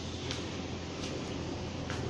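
Flip-flop footsteps on a tile floor, a couple of soft slaps over a steady low hum.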